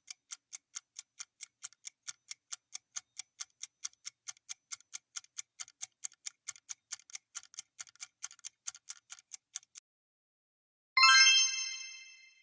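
Quiz countdown timer ticking like a clock, about four ticks a second, stopping near the ten-second mark. About a second later a bright chime rings and fades, sounding as the correct answer is revealed.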